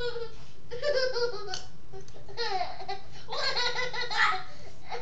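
A baby laughing in high-pitched bouts, three bursts of giggling laughter with short pauses between.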